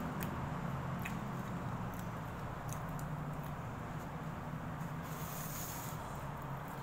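A few faint clicks and rustles of fingers picking food from a plastic takeaway tray while eating, over a steady low hum, with a brief hiss about five seconds in.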